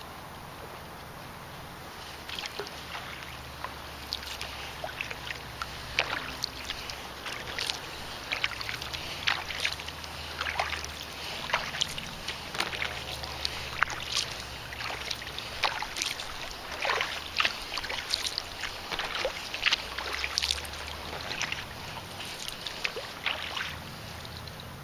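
Kayak paddling: the paddle blades dip into the water and drip, making quick, irregular small splashes and trickles, starting about two seconds in.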